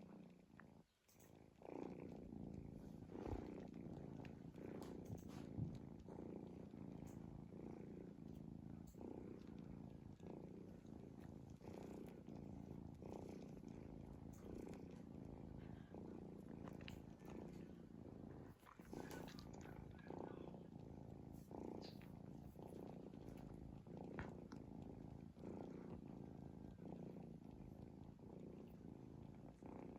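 Cat snoring: a faint, continuous low rumble.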